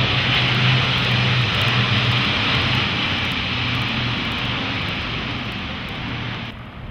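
Aircraft passing overhead: a loud, steady engine roar with a low hum, slowly fading, then cut off sharply near the end.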